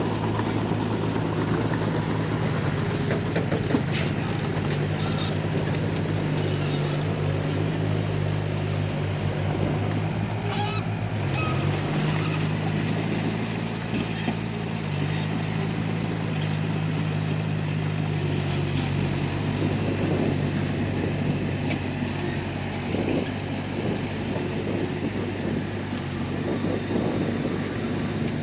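Komatsu D31P bulldozer's diesel engine running steadily under work, its pitch shifting slightly now and then, with occasional sharp clanks.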